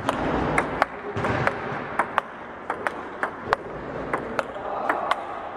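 Basketballs bouncing on a gym floor: sharp, irregular bangs a few times a second over a steady background din.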